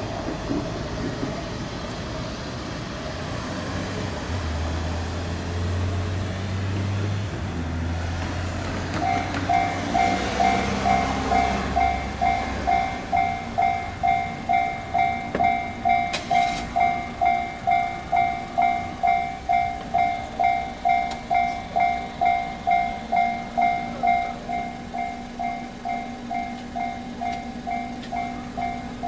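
Japanese railroad crossing warning bell starting up about a third of the way in: an electronic ding repeating about twice a second, the signal that a train is approaching and the crossing is closing. Before it, road traffic with a low vehicle engine hum.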